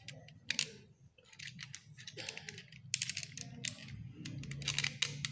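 Irregular light clicks and ticks of a plastic toy car being handled in the hands, its opening parts worked open and shut.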